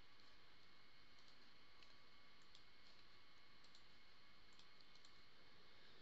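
Near silence: faint room tone with a scattered series of soft computer mouse clicks.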